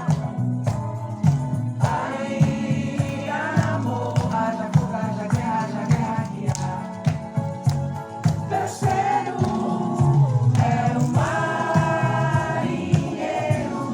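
Several voices singing a song together, with instrumental accompaniment and a steady percussive beat.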